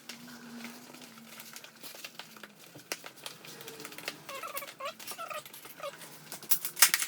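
Clicks and rustling of a rubber bicycle inner tube being handled and tucked into the tire, with a cluster of sharper clicks near the end.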